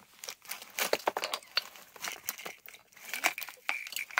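Scraps of paper and plastic wrapper crinkling and rustling as a hand rummages through the loaded hopper of a toy garbage truck, with many small irregular crackles.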